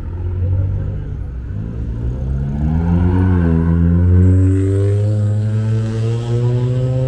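A motor vehicle engine in passing road traffic accelerating, its pitch climbing, dipping briefly about three seconds in, then climbing again and holding, over a low rumble of traffic.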